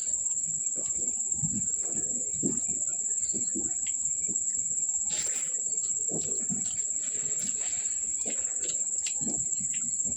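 Close-up eating sounds: a person chewing and smacking on rice, kadhi and fried snacks, with short soft mouth noises every fraction of a second. A steady high-pitched trill runs underneath throughout.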